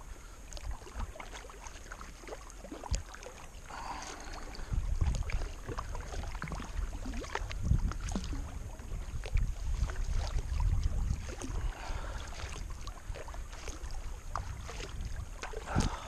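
Kayak paddling: the paddle dipping and splashing in the water with scattered drips and small knocks, over a low rumble of wind on the microphone.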